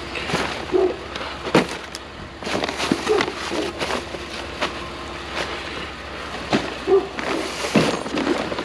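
Irregular clatter, knocks and rustling of loose scrap and debris being picked up and handled, with a faint steady hum underneath.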